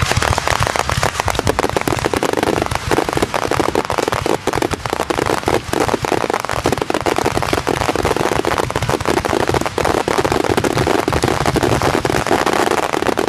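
Fireworks crackling: a dense, continuous stream of rapid small pops and crackles overlapping one another, like crackle shells or a firecracker barrage.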